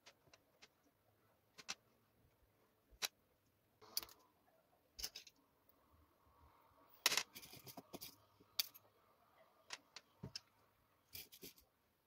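Faint, scattered clicks and taps of pearl beads being picked from a tray and handled for threading, with a quicker run of clicks about seven seconds in.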